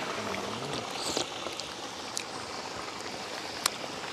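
Chicken frying in hot oil in a pot: a steady sizzle with scattered sharp pops and crackles.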